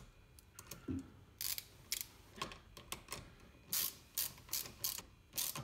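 Socket ratchet wrench clicking in short, irregular runs of strokes as the terminal nuts on a battery isolator's posts are tightened.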